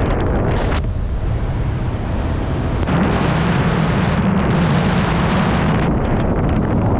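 Wind rushing over a helmet camera's microphone during parachute canopy flight. It grows louder and fuller about three seconds in.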